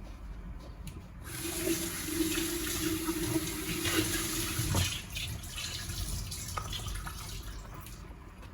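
Kitchen tap running into a sink for about three and a half seconds, with a low steady hum while the water flows, then turned off; quieter small handling sounds follow.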